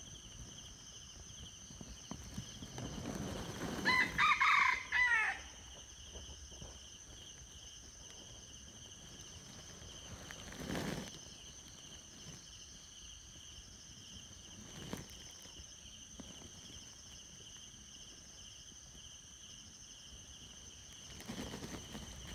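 Red junglefowl rooster crowing once, a short crow about four seconds in, over a steady high-pitched drone. Two soft knocks follow later.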